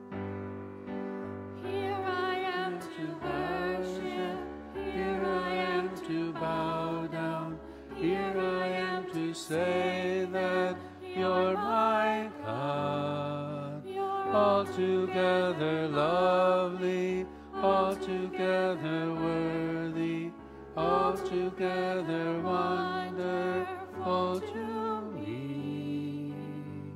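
A church hymn sung with keyboard accompaniment: a singing voice with a wavering, vibrato-like pitch over sustained chords. The singing begins about two seconds in, and the last chord fades near the end.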